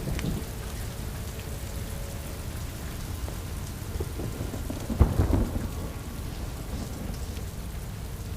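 Steady rain falling, with a sudden clap of thunder about five seconds in that rumbles away.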